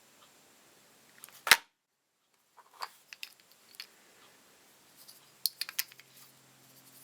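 Sharp clicks and light metallic taps of small hand tools and parts being handled, the loudest click about one and a half seconds in and a quick run of clicks near the end.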